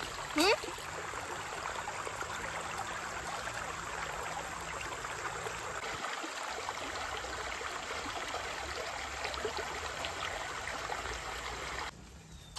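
Shallow rocky stream running, a steady rush of water over stones. About half a second in there is a brief, loud rising sweep, and near the end the water sound cuts off sharply.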